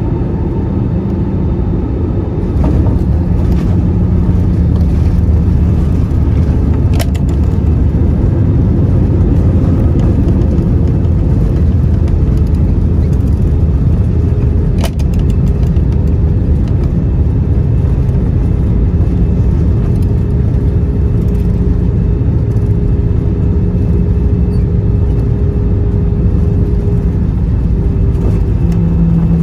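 Airbus A320 cabin noise heard from a window seat: a steady low rumble and engine hum that gets a little louder about two seconds in, with two brief knocks.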